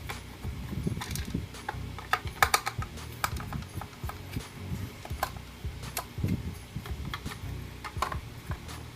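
Irregular small clicks and light knocks of speaker wires and small parts being handled, with a quick cluster of sharper clicks about two and a half seconds in.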